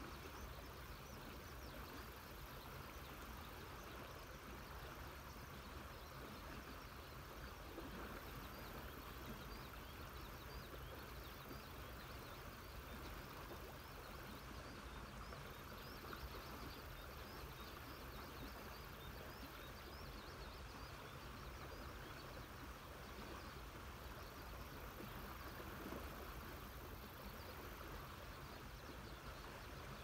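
Faint countryside ambience: a river's steady rush, with many small, quick chirps from birds and insects over it and a thin, high drone that starts and stops every few seconds.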